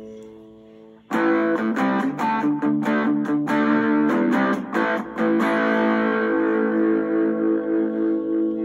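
Electric guitar played through a Danzart Soul Burner distortion pedal. A chord fades out, then about a second in comes a run of quick, choppy chords, ending on a chord left to ring.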